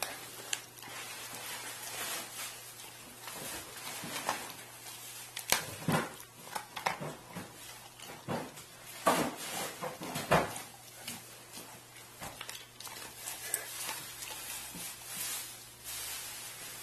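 A dog chewing and crunching on frozen raw chicken portions: irregular crunches and cracks, with louder snaps about five and a half, nine and ten seconds in.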